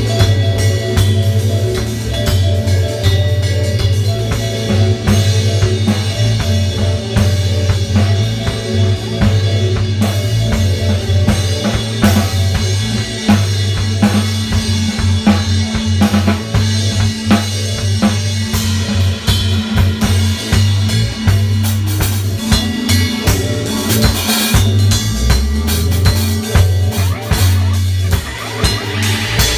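Improvised dub music: a drum beat with snare and rimshot hits over a deep, steady bass line.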